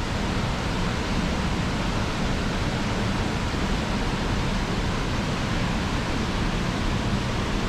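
Reekie Linn waterfall on the River Isla in spate after heavy rain: a steady rush of fast, high floodwater pouring over the falls.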